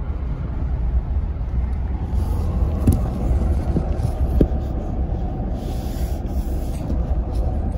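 Car driving steadily, with a low rumble of engine and road noise heard from inside the cabin, and two faint knocks near the middle.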